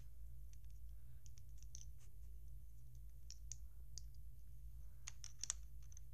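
LEGO bricks being handled: faint scattered plastic clicks and taps, with a few sharper clicks about five seconds in, over a steady low hum.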